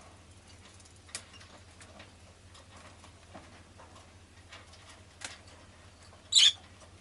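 Rosy-faced lovebird giving one loud, shrill chirp near the end, amid faint scattered clicks and scratching, with two short sharp chirps earlier.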